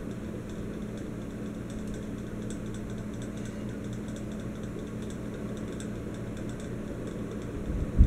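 Encon Casanova ceiling fan running steadily, its motor giving a low even hum, with faint ticking over it.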